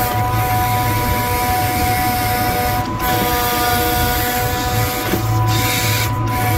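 A 5-ton grapple truck's hydraulic crane working: a steady whine from the hydraulic system over the low hum of the truck's engine, as the boom and grapple swing.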